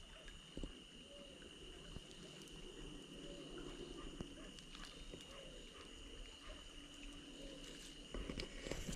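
Faint outdoor wildlife ambience: a steady high-pitched insect drone, with short chirping animal calls repeating about once a second. Near the end, louder knocks and rustling break in.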